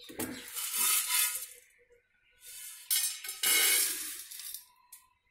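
Dry-roasted sago pearls (sabudana) being poured out and rattling against a stainless steel vessel, in two spells with a short pause about two seconds in.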